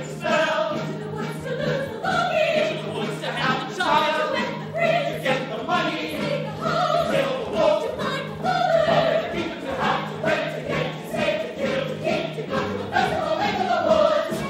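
Full musical-theatre ensemble of mixed voices singing together in chorus over instrumental accompaniment with steady held bass notes.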